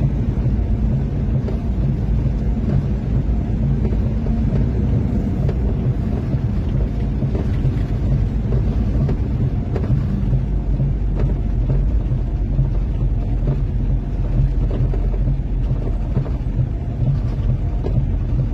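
Steady low rumble of a vehicle's engine and tyres on a snow-covered highway, heard from inside the cab.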